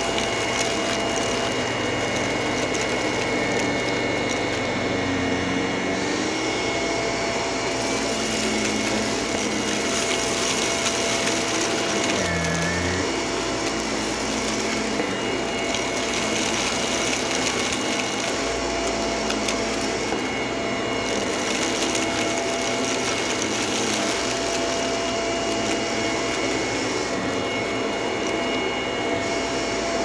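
Shark stick vacuum running steadily over carpet and a rug, sucking up scattered crumbs; a constant rushing motor noise with a few steady whining tones over it.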